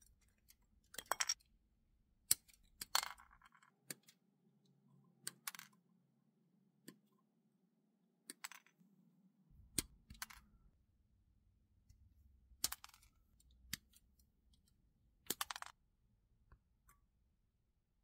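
Sprue cutters snipping small plastic model-kit parts off their plastic sprue: about a dozen sharp snaps and short clicking clusters at irregular intervals, one every second or two.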